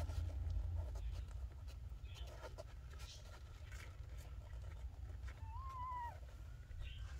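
Newborn kittens mewing with thin, faint squeaks. About five and a half seconds in comes one longer mew that rises, holds and drops away, over a steady low rumble.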